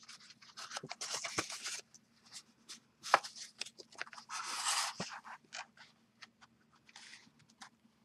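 Cardstock and paper being handled and rubbed by hand: a run of short rustles and scrapes with a few sharp taps, and a longer scrape about four and a half seconds in.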